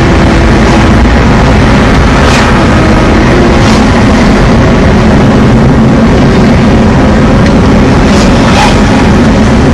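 Loud, steady road and wind noise from inside a moving car.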